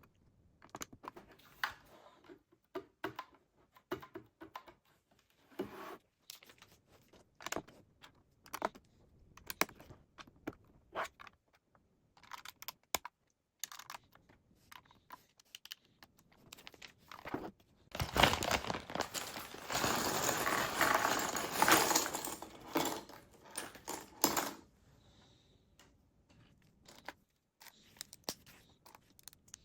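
Lego bricks being handled and snapped together: irregular small plastic clicks and taps. About two-thirds of the way through comes a louder stretch of several seconds of dense rattling and rustling handling noise.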